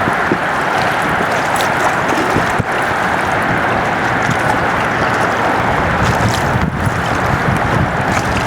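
Steady wind noise on the microphone over the rush of moving river water.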